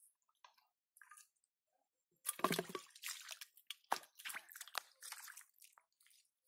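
Hands splashing and squelching in shallow muddy water. A few faint drips at first, then a loud slosh about two seconds in, followed by a run of smaller splashes.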